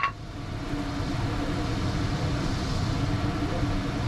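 Steady low mechanical rumble with a faint steady hum.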